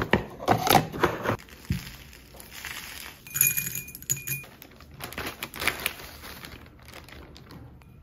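Repotting handling sounds: plastic plant pots clattering and rustling under the hands, then potting mix scraped into a small ceramic pot, with a few light ringing clinks about three and a half seconds in.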